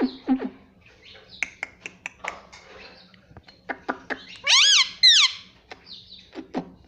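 Indian ringneck parrot making soft clicks and chatter, then two loud calls about four and a half seconds in, each rising and then falling in pitch.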